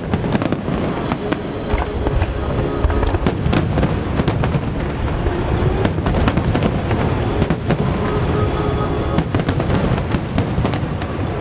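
Aerial fireworks shells bursting in quick succession during a display finale: a dense run of bangs over a continuous low rumble, with the display's music playing underneath.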